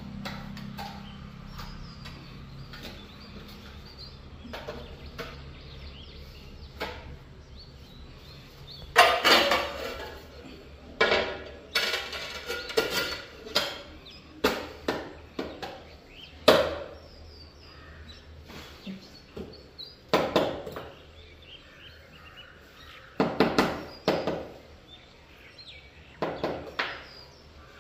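Irregular sharp knocks and clatter, over a dozen, starting about a third of the way in, with faint bird chirps behind.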